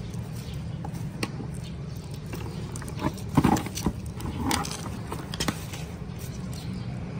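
Handling noise as discarded shallots are gathered up by hand: scattered short rustles and knocks, the loudest a little past the middle, over a steady low rumble.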